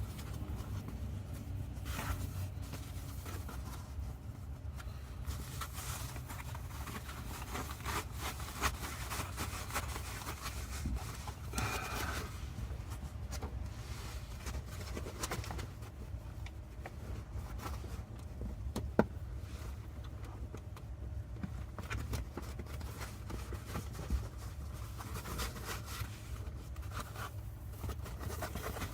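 Hands working at a car seat back: fabric and foam rubbing and rustling, plastic scraping, and irregular small clicks, with one sharper click in the middle, over a steady low hum.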